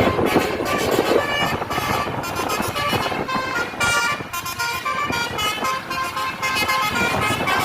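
Telolet horn of an Indonesian tour bus playing a quick multi-note tune, its tones stepping to new pitches several times a second.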